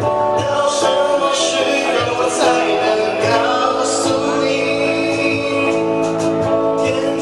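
Live band playing a song: electric guitar strumming chords over a cajón beat, with a male voice singing at times.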